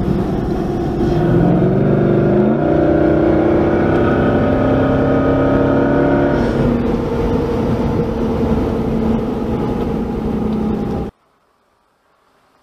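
Jeep Grand Cherokee's 4.7-litre V8 accelerating, heard from inside the cabin, with the whooshing intake noise of its cowl-mounted air intake. Its pitch climbs in steps over the first few seconds, then holds steady. It cuts off suddenly near the end, leaving near silence.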